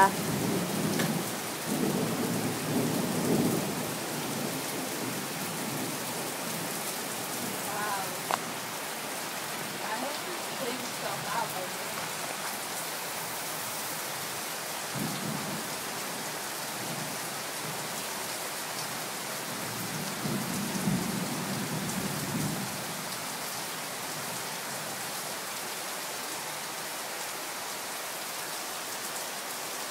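Heavy rain pouring steadily through forest, a constant hiss, with low rolls of thunder rumbling near the start, about halfway through, and again around two-thirds of the way in.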